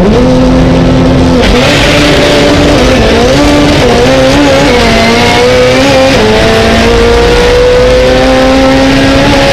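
Race car engine revving hard and accelerating, heard from inside the cockpit. The pitch rises sharply at the start, holds and wavers, drops about six seconds in at a gear change, then climbs slowly again.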